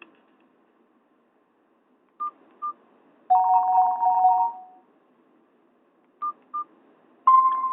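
A Nokia 216 phone's speaker plays short electronic beeps in two pairs. Between the pairs comes a two-note tone lasting about a second and a half, one of the Nokia N78 tones. Near the end a new, louder tone begins.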